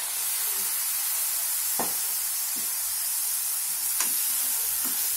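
Spoon scraping and stirring boiled Indian gooseberry (amla) pieces in a steel pan of warm mustard oil and spices, giving a few light taps over a steady soft sizzling hiss.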